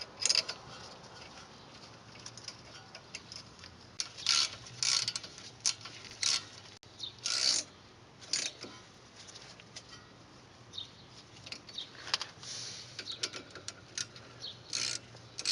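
Ratchet wrench clicking in short, irregular bursts while the brake caliper bolts are tightened back into place.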